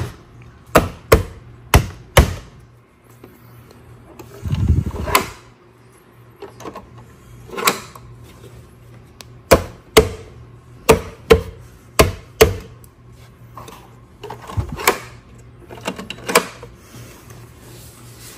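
Plastic battery-cable connectors of an EcoFlow Delta Pro Ultra being unplugged and handled against the battery cases: a string of sharp, irregularly spaced clicks and knocks, with a duller thump about five seconds in.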